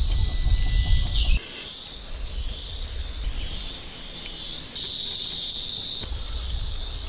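Insects chirping in a steady high trill. A low rumble comes with it for the first second or so and again near the end.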